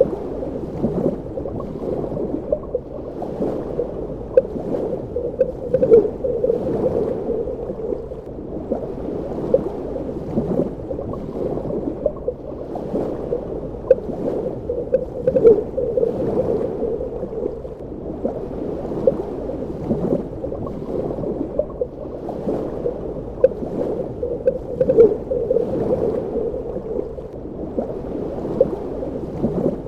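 Underwater ambience: a muffled, low gurgling and bubbling, dotted with many small pops, that swells and eases about every nine or ten seconds.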